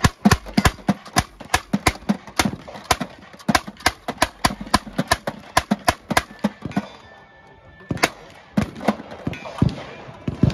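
Replica M1862 .58-calibre hand-cranked Gatling gun firing as its crank is turned, a steady string of about four shots a second. The firing breaks off for about a second, then a handful of slower, uneven shots follow before it stops.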